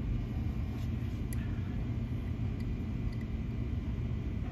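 Steady low room rumble with a few faint clicks as a small diecast toy car is handled in the fingers.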